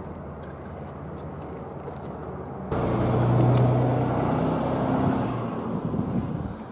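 A faint low outdoor rumble, then, about three seconds in, a louder motor-vehicle engine hum starts abruptly, swells briefly and slowly fades.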